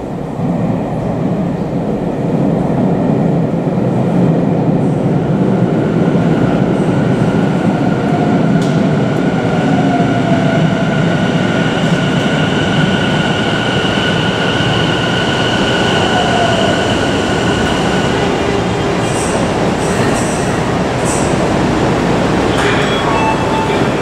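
Tobu 50070 series electric train pulling into an underground station platform and stopping, with a heavy low rumble of wheels and running gear. A steady high whine runs through the middle of the approach, and a few short hisses come near the end as it halts.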